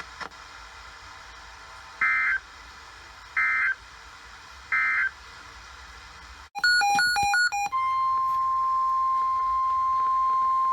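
Three short bursts of NOAA Weather Radio SAME data tones, about 1.4 seconds apart, the end-of-message code closing the watch broadcast. After a brief burst of stepping tones, the steady single-pitch 1050 Hz NOAA Weather Radio alert tone starts about 7.5 seconds in, announcing the next alert.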